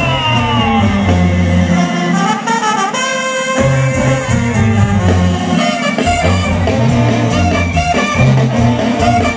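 Mexican banda music playing loudly: brass melody over a low bass line.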